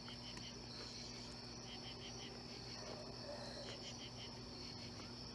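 Night-time insect chorus: a steady high-pitched trill, with crickets chirping in short groups of about four chirps roughly every two seconds.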